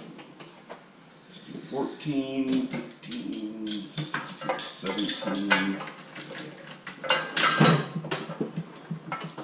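Metal parts and hand tools clinking and clanking in a quick, irregular series of sharp knocks as a steel snow-plow mount bracket is assembled, busiest in the second half.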